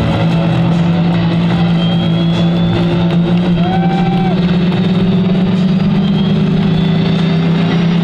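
Jet engines of a Blue Angels F/A-18 Hornet running on the ramp just after engine start: a loud, steady low hum that rises slowly in pitch.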